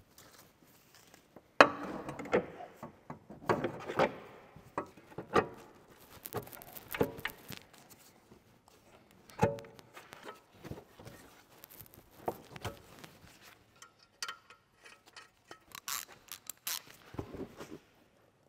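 Scattered metal clinks, knocks and rubbing from hand-fitting a new upper control arm into a Tesla Model S front suspension, with irregular gaps between them.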